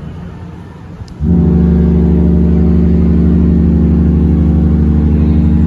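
Cruise ship's deep horn sounding one long, steady blast. It starts abruptly about a second in, after the echo of the previous blast dies away. The blasts are ships answering each other in a horn battle.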